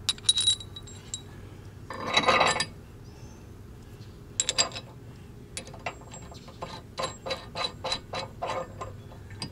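Small steel hitch hardware clinking as it is handled and fitted onto the head of a weight distribution hitch. There are a few sharp clinks at the start and a jingling rattle about two seconds in, then a run of regular metallic clicks, about three a second, over the last few seconds.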